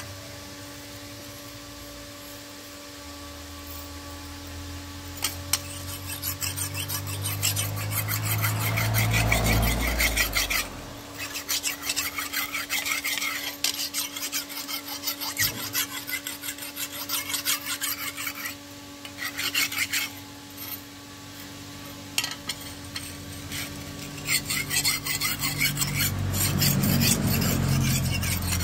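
A sharpening stone rubbed quickly back and forth along the curved steel blade of a hand-forged foldable vegetable cutter, grinding its edge. The rapid scraping strokes start about five seconds in and stop briefly a few times.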